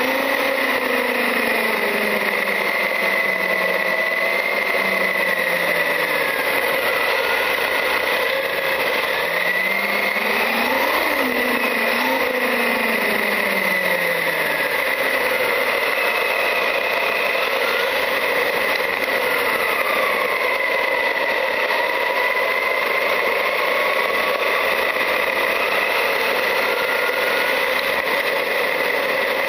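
Traxxas UDR RC truck's brushless electric motor and drivetrain whining as it drives, the pitch rising and falling with speed over a steady hiss.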